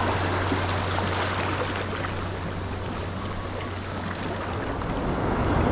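An even wash of surf and wind noise with a steady low hum under it, which stops near the end.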